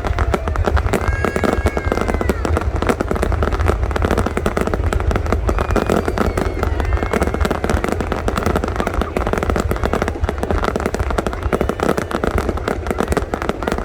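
Aerial fireworks display going off continuously, with rapid bangs and crackling over a steady deep rumble.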